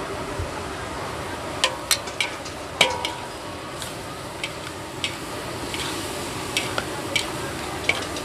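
Metal ladle and spatula clanking and scraping against a large aluminium wok while stir-frying onion flower and pork liver, over a steady sizzle. The clanks come irregularly, the loudest about three seconds in, ringing briefly.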